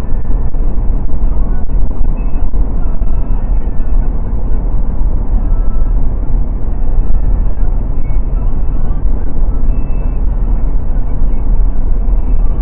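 Steady road and wind noise of a Mercedes-Benz car driving on a highway, heard from inside the cabin, dominated by a heavy low rumble.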